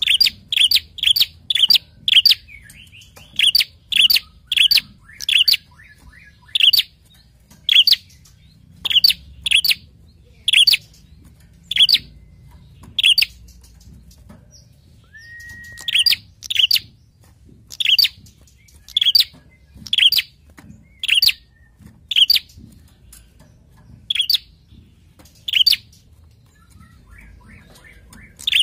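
Caged prenjak songbird calling: sharp, high chirps repeated over and over, at times in quick runs of several a second. About halfway through comes one brief, lower, steady whistle.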